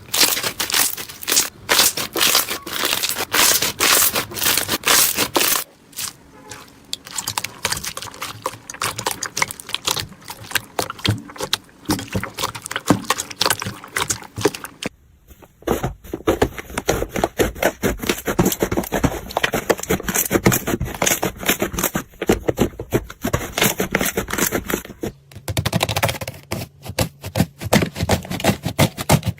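Slime being squished, poked and stretched by hand, making dense crackling and popping clicks with some scraping. The sound changes character three times, about 6, 15 and 25 seconds in, as one slime gives way to another.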